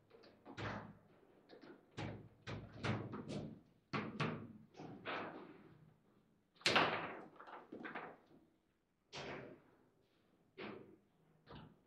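Table football in play: a string of sharp knocks and clacks as the figures strike the ball, the ball hits the table walls and the rods bang against the frame, with the loudest knock about two-thirds of the way through.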